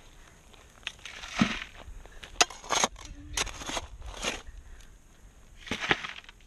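A shovel digging gravelly wash dirt: about eight short crunching scrapes at irregular spacing, one a sharper click about two and a half seconds in.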